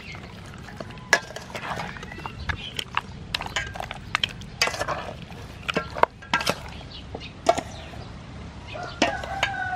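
Metal spoons stirring and scraping marinated pork ribs in a stainless steel bowl, with irregular clinks of spoon on bowl. A bird calls a few times near the end.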